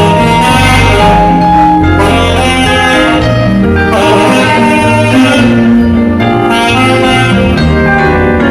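Saxophone playing a melody over accompanying music with a bass line.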